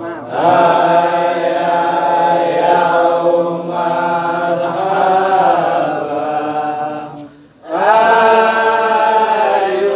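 Voices chanting in long, drawn-out melodic phrases, with one short pause for breath a little past seven seconds in.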